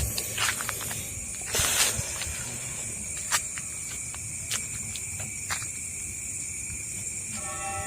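Night insects, crickets among them, chirping steadily at a high pitch, with a few sharp clicks and a brief rustle about one and a half seconds in.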